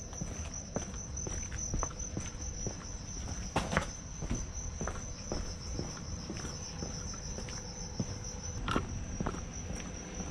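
Insects trilling steadily at a high pitch, with footsteps on a trail.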